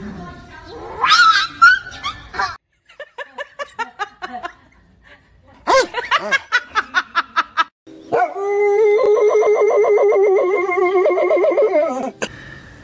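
Dogs barking and yapping in short, high bursts, then a quick run of sharp barks. Near the end a dog howls one long, wavering note for about four seconds.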